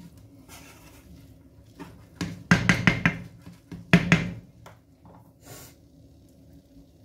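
Wooden spoon knocked against the rim of a non-stick frying pan to shake off minced pork: a quick run of about five knocks a little over two seconds in, and two more about a second later.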